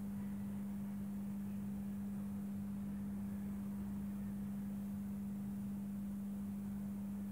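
MSD Metro street lantern humming steadily on one low tone as its freshly fitted 70-watt high pressure sodium lamp, just struck, warms up.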